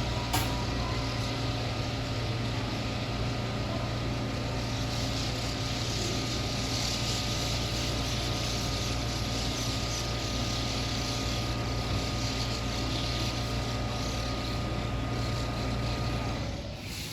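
Electric train at a station platform, a steady mechanical hum with a few fixed whining tones over a hiss. It drops off suddenly near the end.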